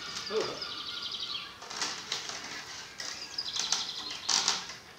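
Willow rods rustling and swishing against each other as they are bent and woven into a coracle frame, in several short bursts. A high, fluttering trill sounds in the first second and a half.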